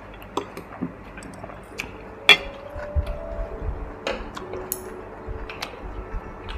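Metal chopsticks and tongs clicking and clinking against a grill plate and bowls while food is picked up, in scattered separate taps, the loudest about two seconds in.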